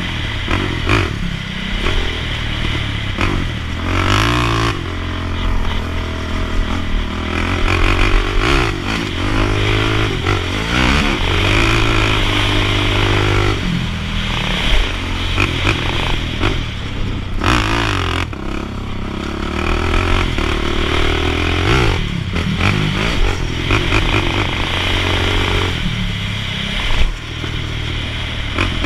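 Sport quad (ATV) engine running hard on a dirt track, revving up and down, its pitch climbing and dropping again and again, heard close from on board.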